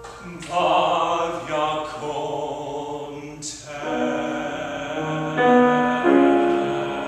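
A man singing solo in long held notes, with piano accompaniment.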